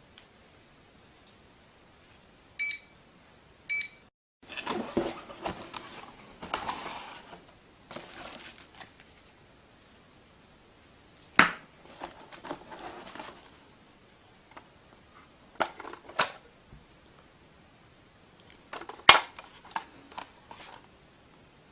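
Two short electronic beeps from a wireless home alarm system, then rustling, clattering and several sharp clicks as the units are handled.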